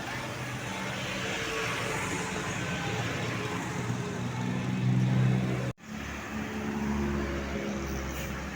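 Tour bus engines and road traffic running, one engine growing louder about five seconds in, then a sudden brief cut-out of all sound before the traffic noise resumes.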